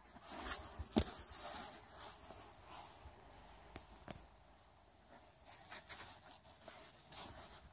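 Scuffing, rustling steps on loose ground, with a sharp knock about a second in and two quick clicks around four seconds.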